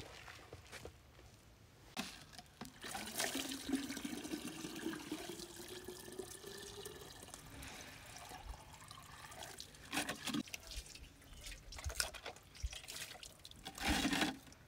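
Water poured from a plastic jerrycan into a jug, its pitch rising slowly as the jug fills. Later come a few sharp knocks and splashes as a metal bowl is handled and rinsed over a plastic basin.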